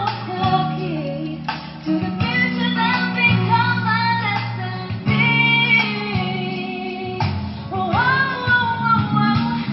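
Recorded pop song with a female vocal over guitar and bass, played loud through a Kevler VRX 932A line-array speaker system in a sound check.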